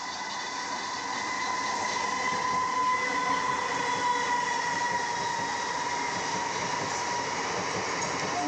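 Indian Railways MEMU electric multiple-unit train passing close by: the running noise of its wheels on the rails, with a steady whine that slowly drops in pitch. The sound grows louder over the first few seconds as the train comes alongside, then holds.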